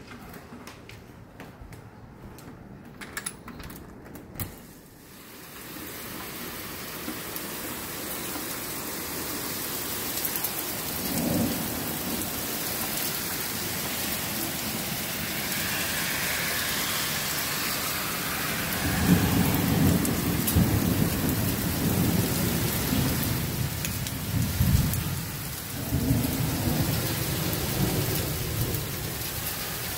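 Hail storm: scattered sharp knocks of hailstones at first, then from about six seconds in a dense, steady pelting of hail and rain. Low rumbling joins in the second half, dropping off briefly near the end.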